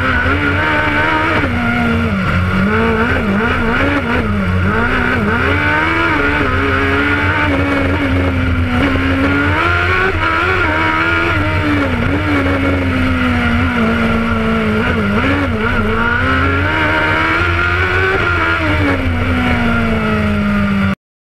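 Race car engine heard from inside the cockpit, driven hard up a winding road, its pitch rising and falling repeatedly as it accelerates and slows. The sound cuts off suddenly near the end.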